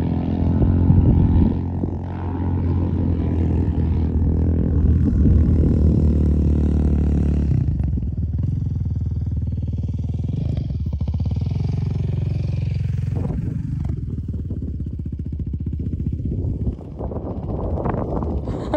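Quad bike (ATV) engine running steadily, then rising and falling in pitch as it is revved and eased off, with a rougher, noisier stretch near the end.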